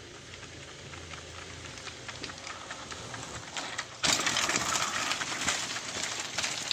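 Mountain bike rolling over a loose gravel road, its tyres crunching on the stones. The sound jumps up suddenly about four seconds in, as the bike passes close by.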